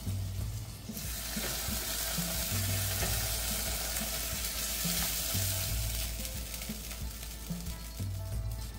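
Hot ghee tempering of shallots and curry leaves sizzling as it is poured from a small pan into a pot of chicken curry, with a spoon stirring. The sizzle swells about a second in and stays steady.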